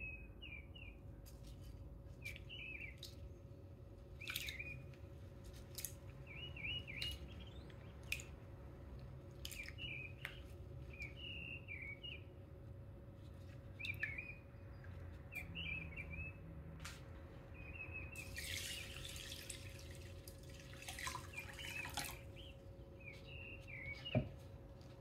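A small bird chirping over and over, short quick calls about once a second, over a faint steady hum. About three quarters through, water splashes and swishes for a few seconds as rice is washed by hand in a glass bowl.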